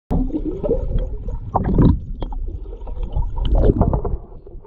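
Water splashing and streaming off a landing net as a fish is lifted out of the lake in it, over a low rumble.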